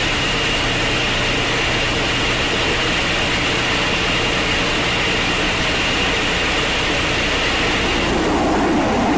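Jet aircraft in flight: a steady roar with a high whine. The whine fades out about eight seconds in.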